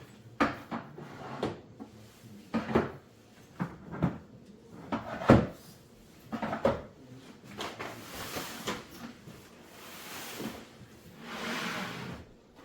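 Kitchen cupboard doors and drawers opening and closing, with grocery items knocked onto shelves: a string of sharp knocks and clunks, the loudest about five seconds in. After that, several stretches of rustling.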